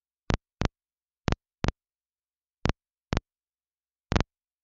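Air traffic control radio feed clicking: three pairs of short squelch bursts, then a single one near the end, with dead silence between.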